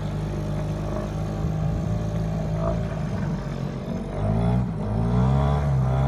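Motorboat engine running steadily, then revving up about four seconds in and holding at a higher pitch.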